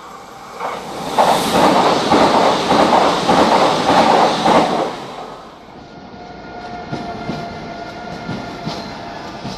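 Renfe train passing close by, its wheels clattering rhythmically over the rail joints, loudest from about one to five seconds in. It then drops to a quieter rumble with a steady whine.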